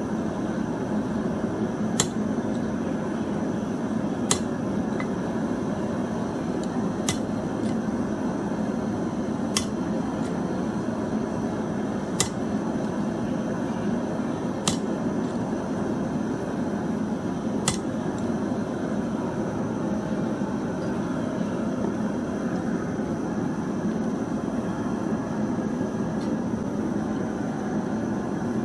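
A forge running with a steady rushing noise while it heats a copper-nickel coin billet. Sharp single clicks sound about every two to three seconds through the first two-thirds, then stop.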